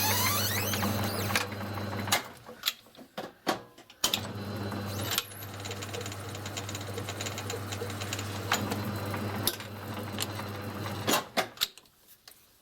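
Myford lathe running with a steady hum while spoke nipples are tapped. It stops for about two seconds, starts again, and stops about a second before the end. Sharp metallic clicks sound while it is stopped, as parts and tools are handled.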